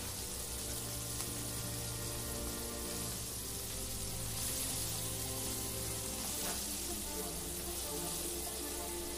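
Food frying with a steady sizzle, under background music with held notes.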